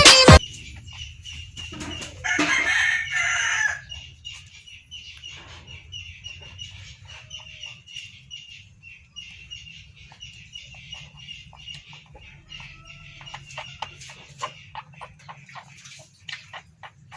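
A rooster crows once about two seconds in, then short high peeps follow in a steady run.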